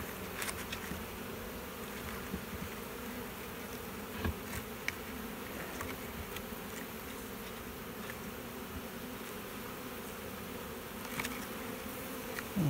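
A swarm of honey bees humming steadily around an open hive box, with a few soft knocks along the way.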